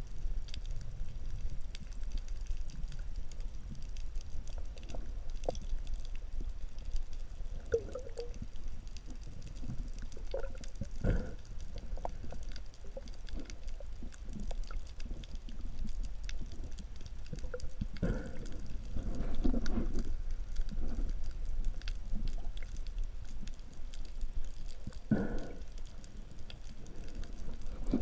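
Muffled underwater sound picked up by a camera in a waterproof housing: a steady low rumble with scattered knocks and gurgling bursts, the strongest about a third of the way in, past the midpoint and near the end.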